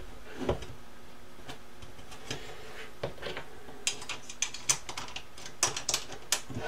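Light, irregular clicks and taps of an Allen key and metal corner bracket against aluminium extrusion as the frame's corner bolts are tightened, coming more often in the second half.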